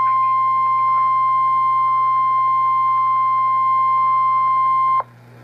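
NOAA Weather Radio 1050 Hz warning alarm tone: a single steady beep-tone that marks an incoming tornado warning, cutting off abruptly about five seconds in.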